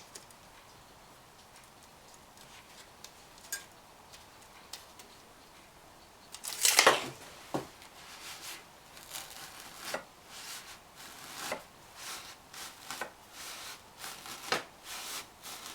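Razor knife cutting through high-density closed-cell packing foam: a loud scratchy stroke about seven seconds in, then a run of short scratchy cutting strokes.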